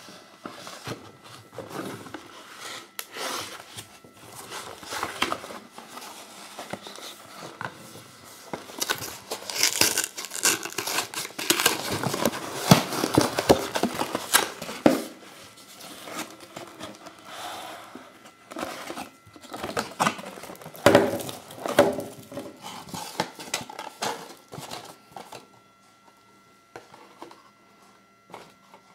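Cardboard Kinder Surprise four-pack box being torn open and handled, with crinkling and rustling as the foil-wrapped eggs are taken out and set down. It is busiest in the middle and dies down near the end.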